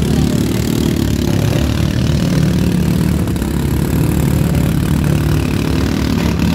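Several riding lawn mower engines running together, revving up and down as the mowers drive and jostle in a derby.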